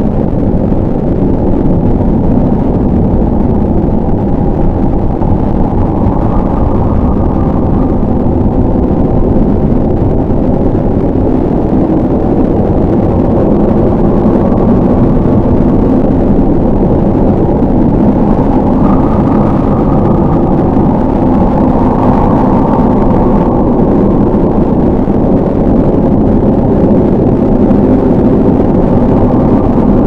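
A loud, steady low rumble with nothing heard above it.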